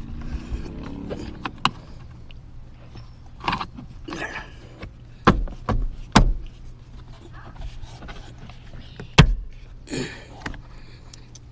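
Irregular sharp clicks and knocks of plastic car interior trim and parts being handled and fitted, with brief rustling between them. The two loudest knocks come about three seconds apart, near the middle and late on.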